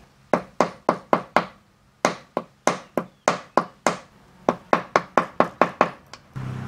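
Sharp taps of a screwdriver's plastic handle butt, used as a hammer to knock a fitting onto the RC crawler's metal lower link and seat it tight. There are three runs of quick taps, about four a second, with short pauses between them.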